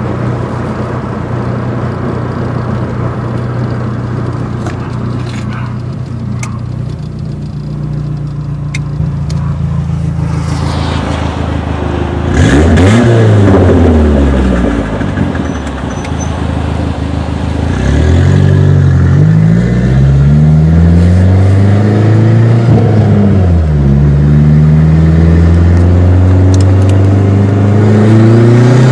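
Dodge SRT-4's turbocharged 2.4-litre four-cylinder engine running at a steady pitch, then, about halfway through, rising and falling in several short throttle pulls.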